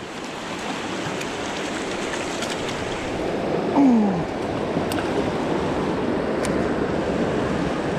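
River water rushing steadily over rocks in a riffle. About four seconds in, a short sound slides down in pitch over it.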